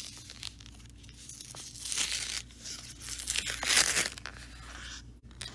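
Paper envelope being torn open by hand: ripping, rustling paper in two stretches, one about two seconds in and a louder one around four seconds, with small crinkles between.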